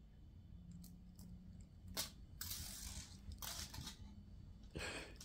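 Faint scratchy rustling, about four short bouts, as a cat's paws and claws scrabble on a rug and wood floor while it bats at a string wand toy.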